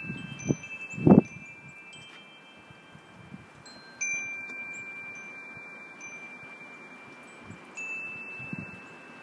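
Chimes ringing with long, slowly fading tones, struck afresh about four seconds in and again near the end. Two dull thumps in the first second or so, footsteps on the wooden deck.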